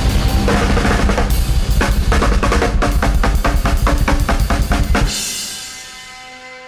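Drum kit played in a free improvisation: dense kick, snare and tom strikes building into a fast roll-like run. The playing stops about five seconds in, leaving the drums and cymbals ringing and fading.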